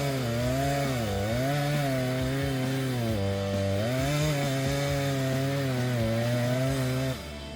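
Husqvarna 435 two-stroke chainsaw engine running on its newly installed carburetor, its speed wavering up and down with two clear dips, then falling away sharply near the end.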